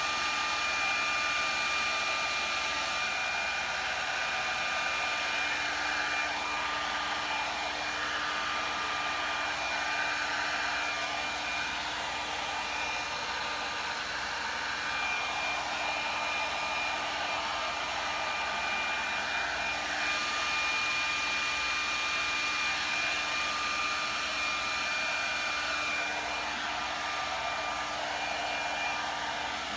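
Hand-held blow dryer running steadily, a constant airflow hiss with a motor whine, blown over wet epoxy resin to spread the pigments. Its level swells and dips gently as it is moved around.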